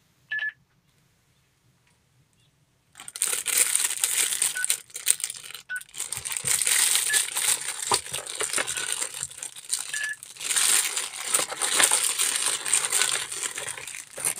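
Clear plastic packaging bags crinkling loudly as wrapped accessories are handled, starting about three seconds in and going on with brief pauses.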